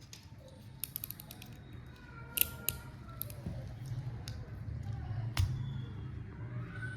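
A quick run of sharp clicks about a second in, then a few single clicks and knocks, the loudest near the end, over a low steady hum.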